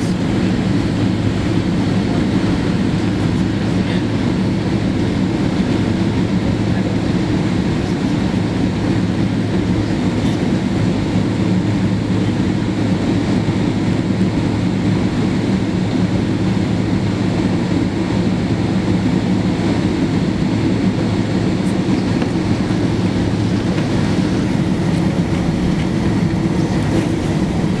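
Steady cabin noise inside a Boeing 767-200 taxiing: a low, even hum of the engines at taxi thrust with the rumble of the wheels rolling over the taxiway.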